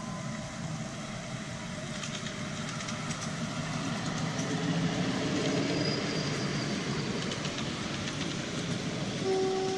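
Ride-on miniature railway train running past: wheels rumbling and clicking over the rail joints, growing louder as it draws close.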